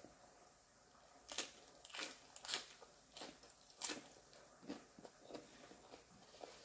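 Close-up crunching and chewing of a mouthful of crisp romaine lettuce wrap: four sharp crunches in the first four seconds, then softer chewing.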